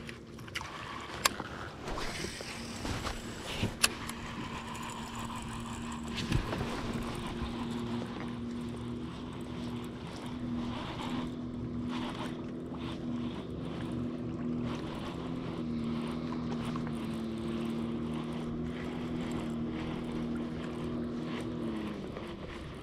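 MotorGuide Xi3 bow-mounted electric trolling motor running with a steady hum from about six seconds in, its pitch sagging as it winds down near the end. Before it starts, a few sharp clicks and knocks.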